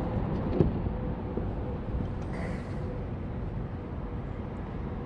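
Wind rumbling on the microphone, with a single small knock about half a second in.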